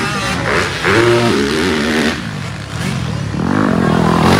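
Motocross bike engines revving on a dirt track. Near the end one bike rises in pitch as it comes up close.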